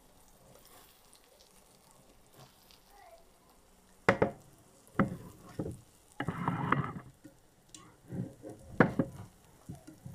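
Carrot-and-egg omelette sizzling faintly in a frying pan, then a plastic slotted spatula scraping and tapping against the pan from about four seconds in as it loosens the browned egg.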